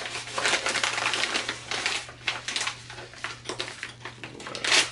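Mailer envelope being torn open and its packaging handled, in irregular crackling rustles and rips, loudest near the end.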